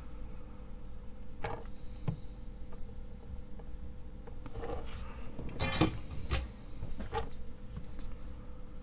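Scattered light clicks and taps from handling a small circuit board and a soldering iron on a wooden bench, with a quick cluster of louder clicks a little past the middle, over a faint steady hum.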